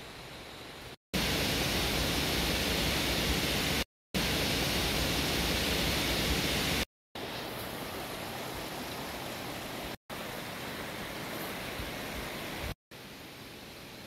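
Steady rushing water of a mountain stream, heard as a run of short clips a few seconds long, each broken off by a brief drop to silence; the two clips from about one to seven seconds in are the loudest.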